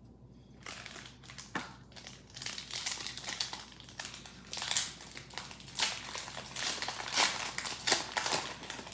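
Foil Pokémon card booster pack wrapper crinkling as it is handled and pulled open, a dense run of irregular crackles starting under a second in.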